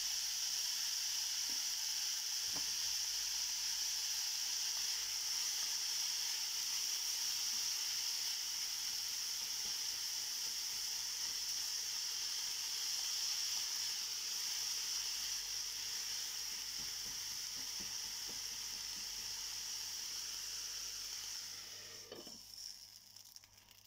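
Sliced onions and curry leaves sizzling steadily in hot oil in a frying pan, with a few light knocks of a spatula stirring them. Near the end the sizzle fades as the pan is covered with its glass lid.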